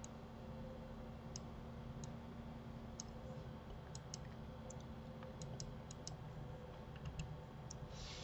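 Faint computer mouse and keyboard clicks, about a dozen scattered irregularly, over a steady low hum.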